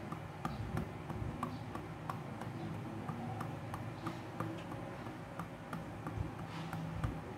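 Light rhythmic patting of a hand on a baby's bare back during a back massage, about three soft pats a second.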